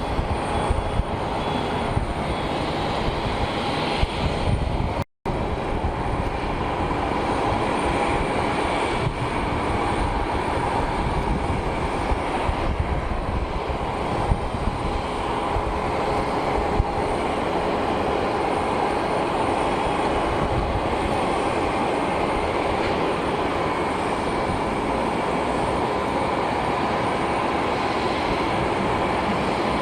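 Jet aircraft engines running with a steady roar and a faint whine, cut off for a moment about five seconds in.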